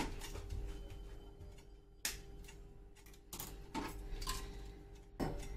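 Metal burner parts of a new four-burner stove being handled and set down: about half a dozen sharp clicks and knocks, irregularly spaced, over a faint steady hum.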